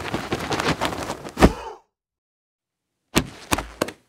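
Foley sound effects for an animated scene: a rapid clatter of sharp knocks and clicks with one hard hit about a second and a half in, cutting to dead silence, then a few more sharp impacts near the end.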